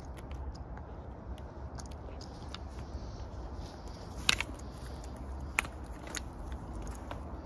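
Dry twigs and forest-floor litter crackling and snapping, with a few sharper cracks about four, five and a half, and six seconds in, over a steady low rumble.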